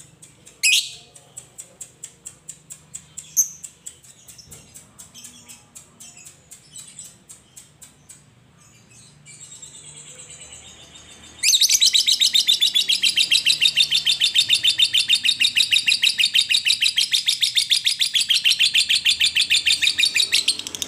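Fischer's lovebird calling: fast, soft ticking chirps for about ten seconds, then, about eleven seconds in, a loud, very rapid chattering trill (the 'ngekek') that runs unbroken for about nine seconds and stops just before the end.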